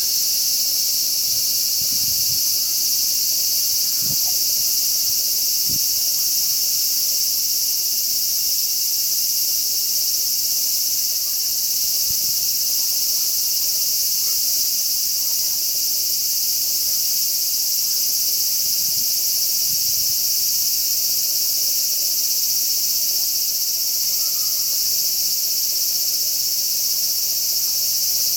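Chorus of cicadas singing, a steady high-pitched drone that does not let up.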